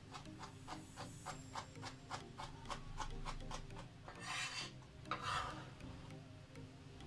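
Chef's knife finely chopping tomato on a plastic cutting board: quick even taps, about five a second, for about three seconds. Then two scraping sweeps of the blade across the board as the chopped tomato is pushed together.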